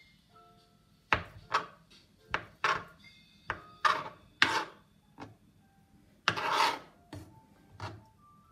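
Knife cutting hard-boiled eggs on a cutting board: a dozen or so sharp strokes of the blade against the board, with one longer scraping stroke about six seconds in.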